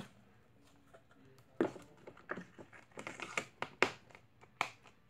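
Plastic slime containers and lids being handled: a few irregular sharp clicks and knocks, starting about a second and a half in.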